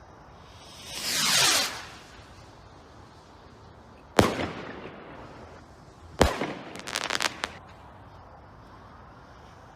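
Guy Fawkes 'Ammo Crate' 1.3G firework barrage firing: a whoosh about a second in, then two sharp bangs about two seconds apart, the second followed by a quick run of crackling pops.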